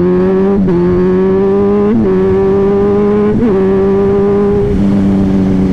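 Kawasaki Z1000 inline-four engine running steadily under way at road speed, its pitch stepping a few times, over rushing wind noise.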